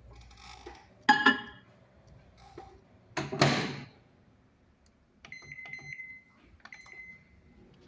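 Fischer microwave oven: two loud clunks, then keypad buttons pressed with short runs of clicks, each answered by a high electronic beep that fades out, first about five seconds in and again near the end.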